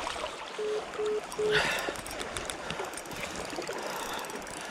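Shallow river current rippling and rushing close by. Early on come three short beeps at one pitch, evenly spaced about half a second apart, followed at once by a brief louder splash.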